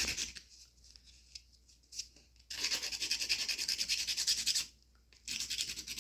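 Diamond depth file rubbing along the cut edge of a toenail in quick back-and-forth strokes, smoothing the edge after a nail wedge has been trimmed out. The filing starts about two and a half seconds in, pauses briefly, and starts again near the end.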